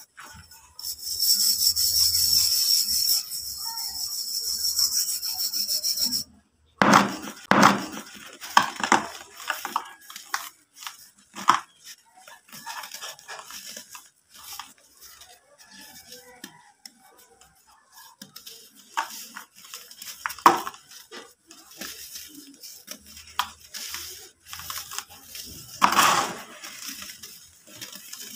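Balls and lumps of dry brick-dust dirt crushed and crumbled by hand: scattered dry crunches and the rustle of falling powder, with one louder crunch near the end. For the first six seconds a steady high hiss is louder than the crumbling.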